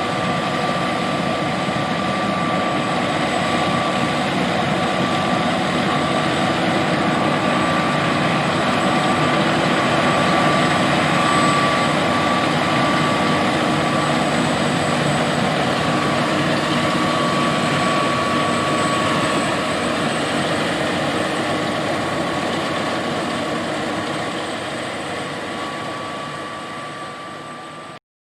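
John Deere S780 combine harvester running steadily while harvesting soybeans: a constant machine rumble with a thin high whine over it. The sound fades down near the end and cuts off.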